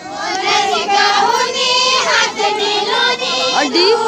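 Group of women singing a Kumaoni chanchari folk song together, their voices held on long, drawn-out notes.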